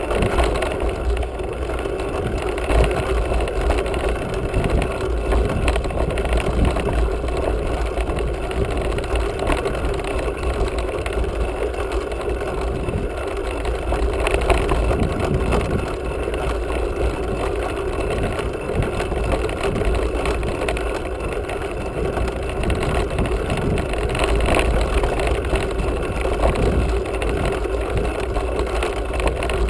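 Wind buffeting the camera's microphone and mountain-bike tyres rolling over a dry dirt trail, heard as a steady, rumbling noise.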